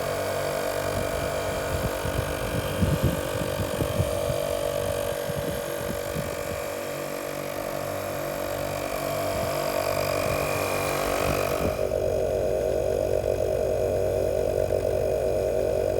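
ARB twin-motor 12 V air compressor (CKMTP12) running steadily while inflating a tyre, a steady motor hum with a hissy top. About twelve seconds in the hiss drops away and the hum carries on. It sounds okay on its freshly replaced motor.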